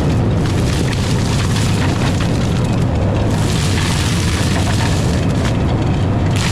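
Diesel engine of heavy earthmoving equipment running steadily close by: a loud, constant low rumble.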